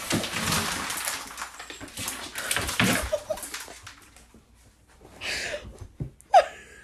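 A pet scrambling and leaping about a room: scrabbling and knocking on furniture for the first three seconds, a thump about six seconds in, then a short rising whimper.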